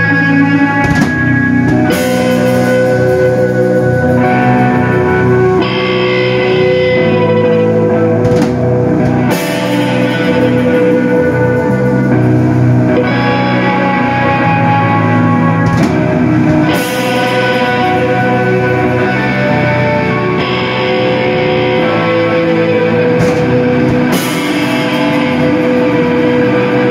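Live rock band playing loud and instrumental, on electric guitars and a drum kit. Sustained, ringing guitar chords are punctuated every few seconds by sharp cymbal crashes.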